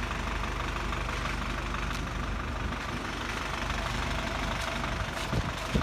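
Isuzu crane truck's diesel engine idling steadily, a low even hum.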